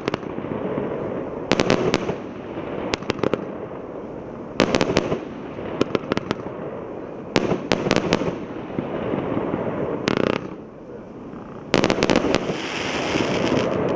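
120-shot, 1-inch fireworks cake (EC085 "Liverpool") firing: clusters of sharp bangs every second or two as its shells launch and burst, over a continuous hiss. Near the end comes a louder, higher hissing crackle.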